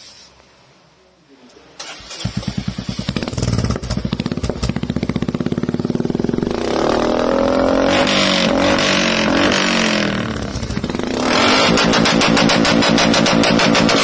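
Royal Enfield Meteor 350's single-cylinder engine starting about two seconds in through an aftermarket Red Rooster exhaust, then idling with an evenly spaced beat of separate firings. The revs are raised and held about six seconds in, drop briefly, and are raised and held again for the last few seconds.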